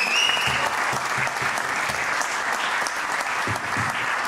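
Audience applauding steadily, with a high whistle that ends about half a second in.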